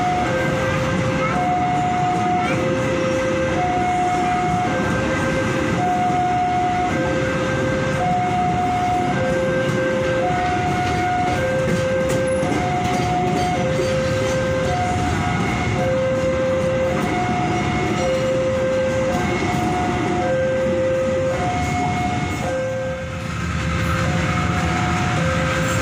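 Level-crossing warning alarm sounding a repeating two-tone signal, a higher tone and a lower tone taking turns about once a second, over the steady rumble of a passenger train running past the crossing. The pattern breaks briefly near the end and then picks up again.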